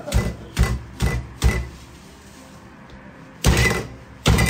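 Cleaver chopping braised goose on a thick wooden chopping block: four quick chops about half a second apart, a pause, then two more.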